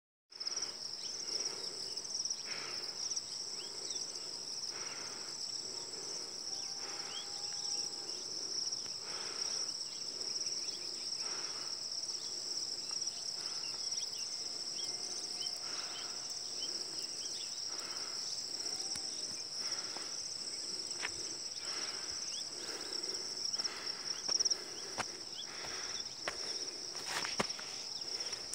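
Steady high-pitched chorus of insects trilling without a break, with faint scattered chirps beneath it and a couple of brief knocks near the end.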